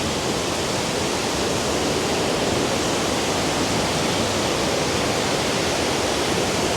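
A waterfall running full with rain and snowmelt: a loud, steady rush of falling water.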